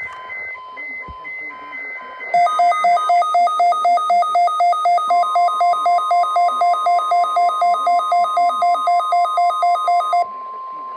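NOAA Weather Radio weekly test alarm: a couple of seconds of short buzzy data tones, then a weather-alert receiver's loud electronic alarm beeping about four times a second for about eight seconds. About halfway through, the broadcast's steady warning alarm tone comes in and holds after the beeping stops.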